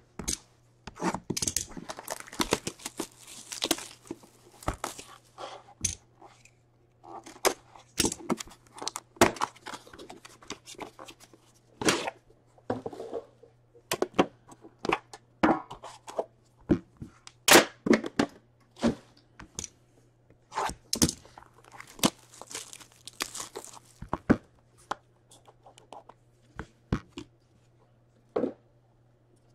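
Clear plastic shrink wrap being torn and crinkled off a cardboard hockey card box, with many sharp clicks and small knocks as the box is turned in the hands. A faint steady hum lies underneath.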